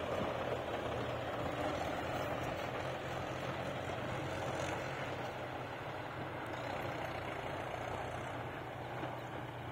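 Tractor engines running steadily as the tractors pull loaded soil trolleys away, the sound slowly growing fainter.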